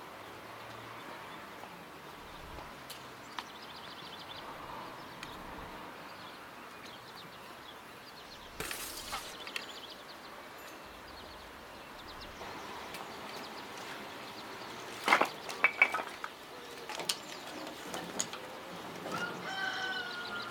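Outdoor ambience with faint bird chirps. About nine seconds in comes a short clatter as small steel pans are set down on a wooden table. Around fifteen seconds in, a cluster of sharp metal knocks at the wood-burning stove's firebox makes the loudest sounds, and a hen clucks near the end.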